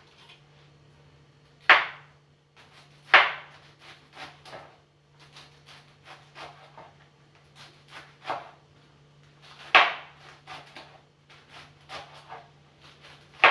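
Kitchen knife cutting through fresh collard green (sukuma wiki) stems and leaves: irregular crisp cuts and snaps, four of them louder, with many softer ones between.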